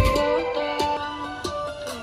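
Music played back through a Bluetooth speaker in a sound test: a sparse stretch of pitched, plucked-sounding notes with light ticks, the heavy bass dropped out.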